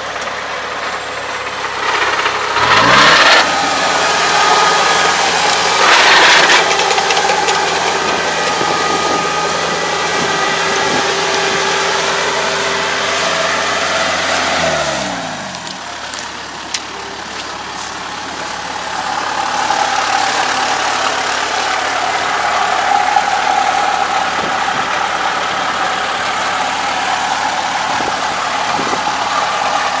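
Kubota ARN460 combine harvester's diesel engine and threshing machinery running while cutting lodged rice. The engine revs up early on, with two brief loud rushes of noise soon after, then its note falls away about halfway through and the machine runs on more quietly and roughly.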